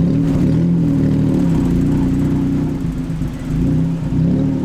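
A motor vehicle's engine running with a steady, slightly wavering hum.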